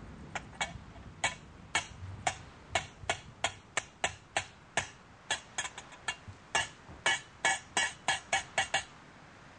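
A run of sharp percussive clicks or taps, about three a second and slightly uneven, each with a short ring, stopping shortly before the end.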